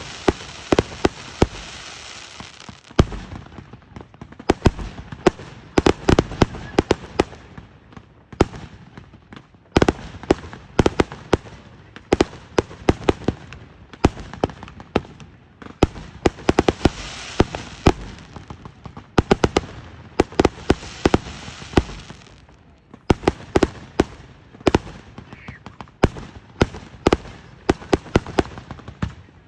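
Fireworks exploding in rapid succession: many sharp bangs a second, one on top of another, with stretches of crackling and hiss between.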